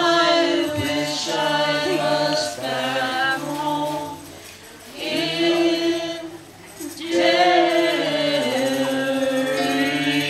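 Several voices singing together in harmony in long, held phrases, with short breaks between phrases.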